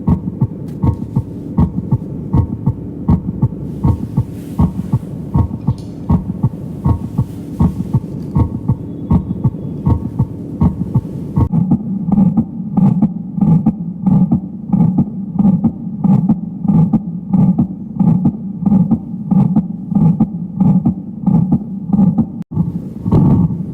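Recorded human heart sounds: a regular run of short lub-dub beats over a steady low hum. About eleven seconds in, the recording changes and the beats turn heavier and louder, and a brief dropout follows near the end.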